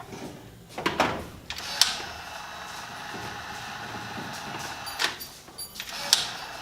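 A few sharp knocks, then a steady mechanical hum with a faint whine from about a second and a half in. The hum breaks off briefly near the end, and another knock follows.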